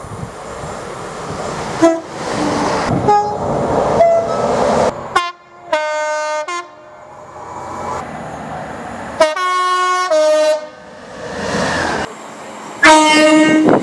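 Train air horns sounding a series of chords: a few short blasts, then longer blasts of about a second each. Each blast starts and stops abruptly, as from spliced clips, with the rumble of passing trains between.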